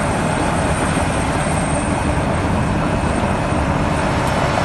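Heavy truck diesel engine running steadily under hard load while towing a stuck semi-truck out of deep snow.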